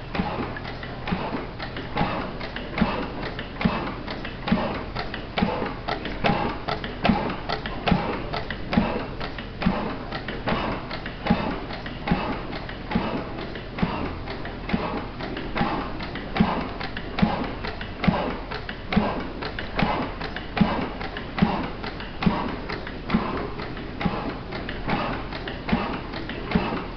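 A National single-cylinder horizontal stationary gas engine running steadily. It gives a heavy beat a little more often than once a second, with lighter ticking between the beats.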